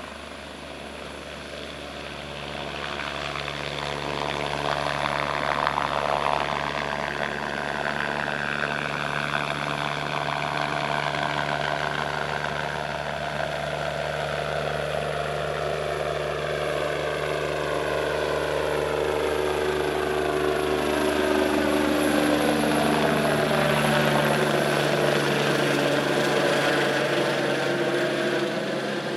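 Life Flight medical helicopter lifting off and climbing away: turbine engine and rotor running at take-off power. It grows louder a few seconds in and is loudest near the end as it passes overhead, its pitch slowly sliding as it moves.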